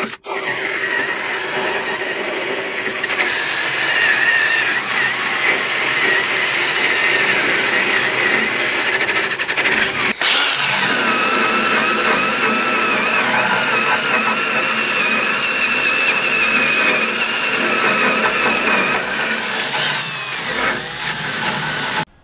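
Electric drill spinning a wire-wheel brush against a rusty steel rod end, scrubbing the rust off to bare metal. It runs steadily with a wavering whine, stops for a moment about ten seconds in, starts again, and cuts off suddenly near the end.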